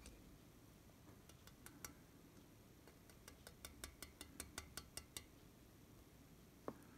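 Faint clicking of wooden chopsticks against a metal bowl while eating: a few scattered clicks, then a quick run of about five a second, and a short falling squeak near the end.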